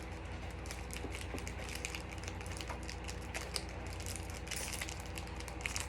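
Small crackles and clicks of a foil trading-card pack being handled and worked at to open it, over a steady low hum.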